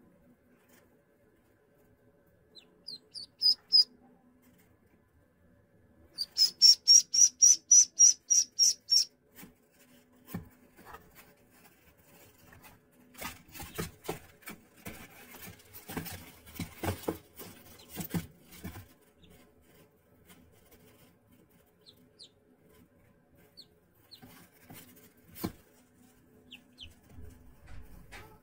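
Ducklings peeping: a few high peeps about three seconds in, then a fast run of loud high peeps, about four a second, for some three seconds. Later, a stretch of scratching and tapping on the cardboard floor of their box, with a few faint peeps near the end.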